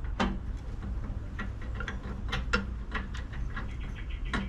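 Light, irregular metallic clicks as a washer and arbor nut are threaded by hand onto a table saw's blade arbor, with the blade shifting against it.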